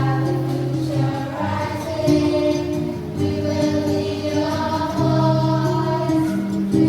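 Church choir singing, with steady held chords from an accompanying instrument underneath.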